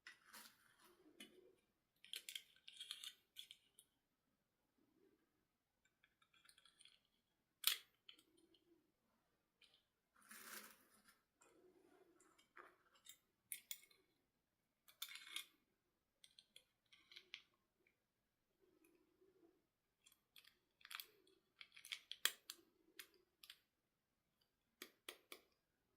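Faint, scattered clicks and short rustles of small plastic doll and packaging parts being handled, with a sharp click about eight seconds in.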